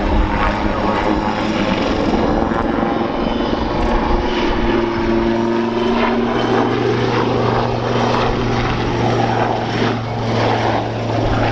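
Army Air Corps Westland Lynx helicopter flying a display pass: main rotor and turbine engines running, with a steady low hum that strengthens about four seconds in.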